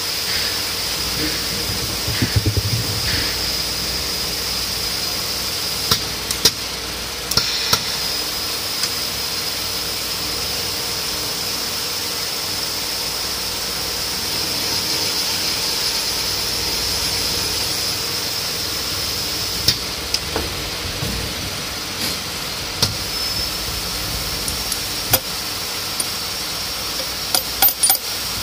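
Valve seat boring machine running steadily with a high whine as its cutter machines a valve seat in a cylinder head. A few sharp metallic clicks sound a few seconds in and again near the end.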